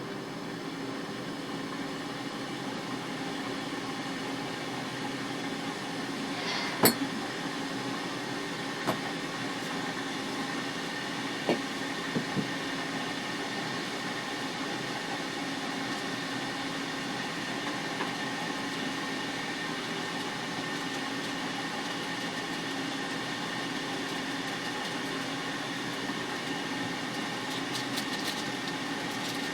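Steady mechanical hum, like a running fan or motor, holding a few fixed tones. It is broken by a handful of sharp clicks or knocks, the loudest about seven seconds in and three more between nine and twelve and a half seconds.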